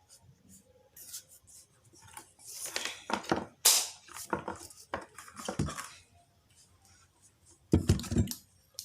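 Small parts and cables being handled on a workbench: scattered clicks, scrapes and rustling, then a louder knock near the end.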